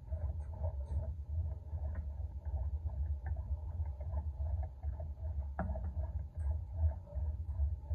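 Cable pulley and rotating wrist-ball handle worked in repetitions: an uneven low rumble with small scratchy creaks, and one sharp click about five and a half seconds in.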